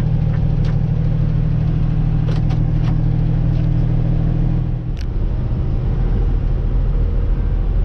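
Semi-truck engine running steadily, heard from inside the cab at highway speed. About five seconds in there is a sharp click, and the engine's steady hum gives way to a deeper rumble.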